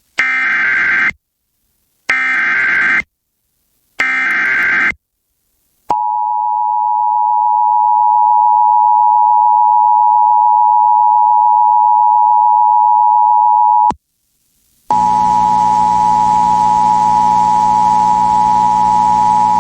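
Emergency Alert System alert opening: three short bursts of screeching SAME header data about two seconds apart, then the steady two-tone EAS attention signal for about eight seconds. After a brief gap the attention tone sounds again, buzzier and distorted.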